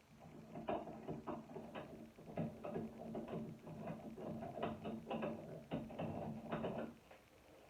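Channel-lock pliers gripping and turning an old shower head off the shower arm: a run of irregular clicks, knocks and scrapes of metal on metal, over a low steady hum, all stopping about 7 seconds in.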